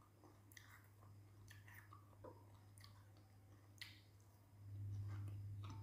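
Faint chewing of food, with scattered soft crunches and mouth clicks, over a low steady hum that gets louder about four and a half seconds in.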